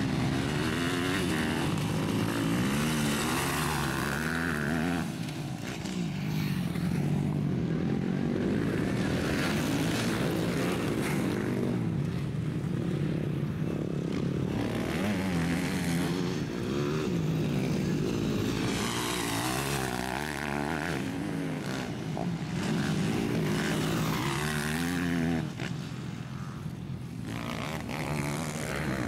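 Motocross bikes racing on a dirt track, their engines revving up and dropping again and again as the riders accelerate and shift gears.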